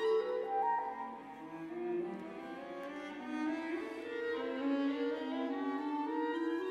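Chamber quintet of clarinet, horn, violin, viola and cello playing an instrumental passage, with bowed strings holding several overlapping notes that shift in pitch.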